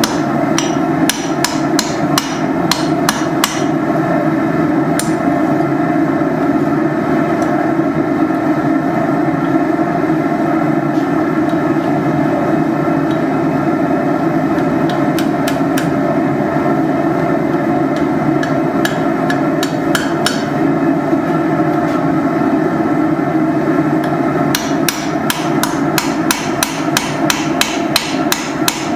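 Hand hammer striking a hot iron railroad spike on an anvil in quick runs of a few blows a second, with pauses between the runs, over a steady continuous roar.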